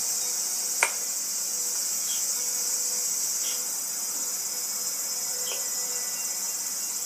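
A steady, high-pitched drone of insects, with a single sharp click a little under a second in.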